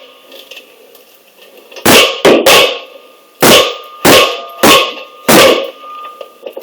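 Hammer blows on an old brake rotor bolted backwards onto a Chrysler Town & Country's hub, struck to drive out the seized hub wheel assembly. After a pause of about two seconds come about six heavy metal-on-metal blows, roughly every half second, each leaving a metallic ring.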